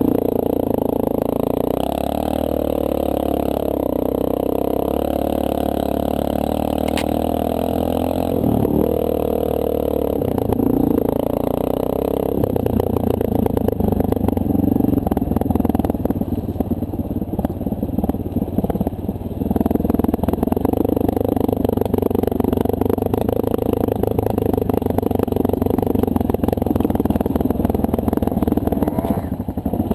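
A 2009 Honda CRF230L's single-cylinder four-stroke engine running under way on a dirt trail, its note rising and falling with the throttle. From about twelve seconds in, the sound turns choppier and rougher as the bike goes over rocky ground.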